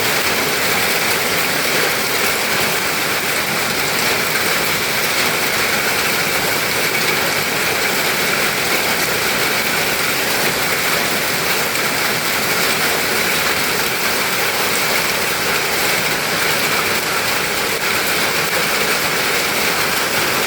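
Heavy rain pouring down in a storm: a loud, even hiss that does not let up.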